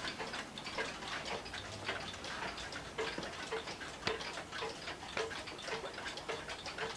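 1970s Emperor chain-driven grandfather clock's escapement ticking steadily, about two ticks a second.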